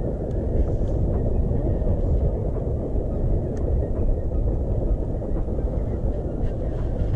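Wind buffeting the camera microphone: a steady, fluttering low rumble.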